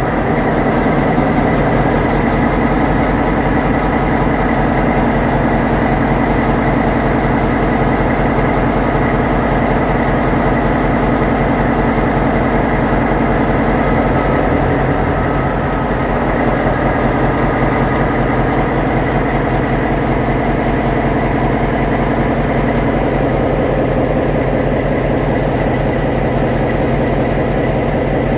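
EMD SD38-2 diesel-electric locomotive's Roots-blown, non-turbocharged 16-cylinder two-stroke 645 engine running loud and steady, a rich many-toned drone over a fast, even firing beat.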